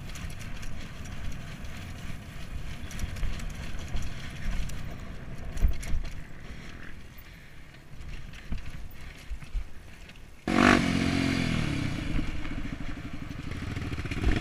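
Low rumble with scattered knocks, then about ten seconds in a dirt bike's engine comes in suddenly and loudly and keeps running.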